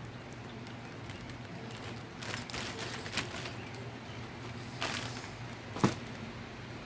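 Parts and tools being handled at a workbench: brief rustles and light clicks, with one sharp click or knock near the end, over a steady low hum.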